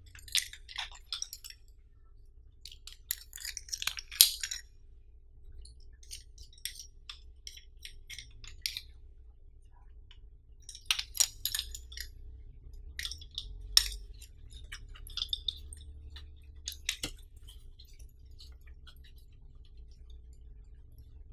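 A double camera strap harness being handled: its metal snap hooks and buckles give scattered light clinks and clicks, the sharpest about four seconds in and again near fourteen seconds.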